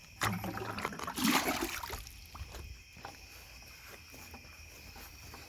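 A short splashing rush of water about a second in, as a bucket is dipped into the pool for a little water. Crickets chirp steadily behind.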